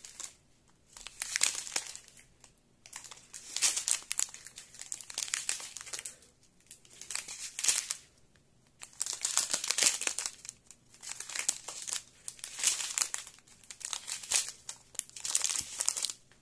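Small plastic bags of diamond-painting drills crinkling as they are handled and sorted, in bursts with short pauses between them.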